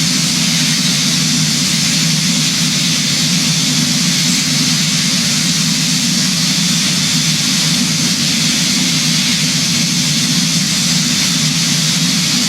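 Steady aircraft noise of engines and rushing air, with a low hum under a broad hiss, unchanging throughout.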